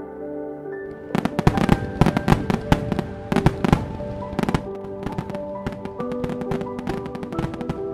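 Fireworks sound effect: a rapid run of bangs and crackles starting about a second in, thinning out after about four seconds, over soft music with held notes.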